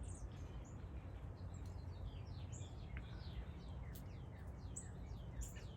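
Small songbirds calling: many short, high chirp notes, each sliding quickly downward, coming in quick irregular succession over a low steady background rumble.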